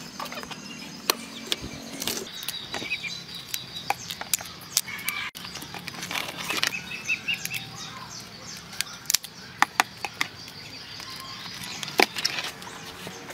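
Raw crab shells cracking and clicking as the crabs are broken apart by hand and the pieces dropped into a plastic basket: a scatter of sharp clicks, the loudest about a second in and near the end. Birds chirp faintly in the background.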